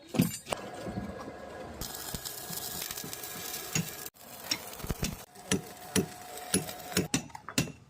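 Stick (arc) welding on steel column bars: the electrode arc crackling and sizzling steadily. It cuts off suddenly about four seconds in, then resumes with a run of sharp pops and clicks.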